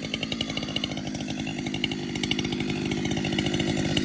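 Two-stroke chainsaw running steadily, slowly getting louder.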